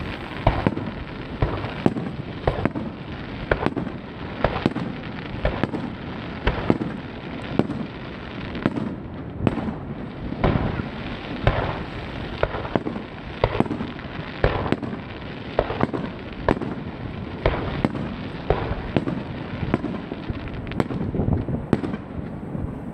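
Aerial firework shells bursting in steady succession, about one sharp boom a second, each trailing off.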